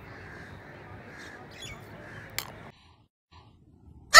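Steady outdoor background hum with a brief bird call and a sharp click about two and a half seconds in. The sound then drops to silence, and right at the end a sudden, very loud yell begins.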